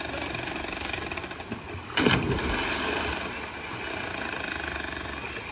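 A person splashing into a deep stream pool after a jump from a rock ledge: one loud splash about two seconds in, over a steady rushing noise.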